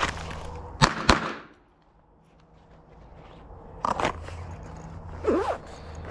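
Glock 44 .22 LR pistol firing in quick shots: one at the start, two in rapid succession about a second in, and another quick pair about four seconds in.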